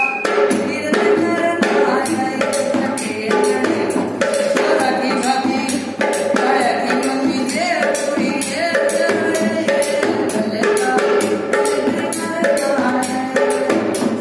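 Rajasthani folk music accompanying a kathputli puppet dance, with a steady, fast beat of jingling percussion and drum under a melody.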